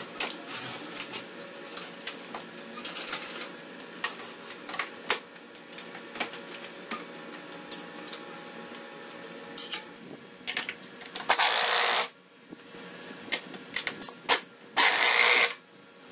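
Scattered mechanical clicks and clatter over a faint steady hum, with two loud bursts of hissing, each about a second long, near the end.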